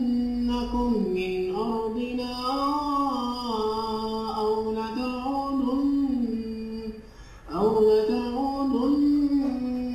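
A man's voice reciting the Quran in a slow, melodic chanted style. He holds long drawn-out notes that rise and fall in pitch. He breaks off briefly for breath about seven seconds in, then starts a new phrase.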